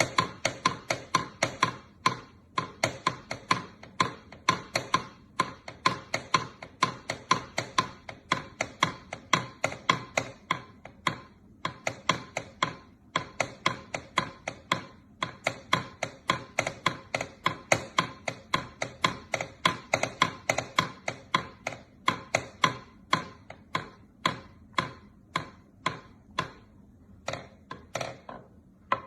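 A long run of sharp, quick taps or knocks, about three a second, broken by a few short pauses.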